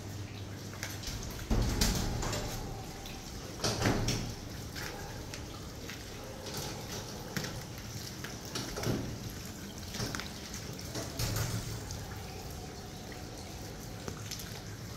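Scattered footsteps and knocks of someone walking on concrete, with handling noise on the phone recording them. The loudest thuds come about two and four seconds in, over a low steady hum.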